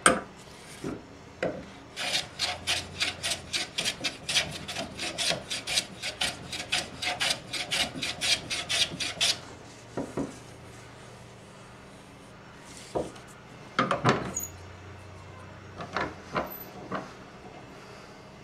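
Abrasive strokes rubbing back and forth on spalted taraire wood by hand, a fast even rhythm of about three to four strokes a second for some seven seconds. A sharp knock sounds right at the start, and a few scattered knocks come in the second half.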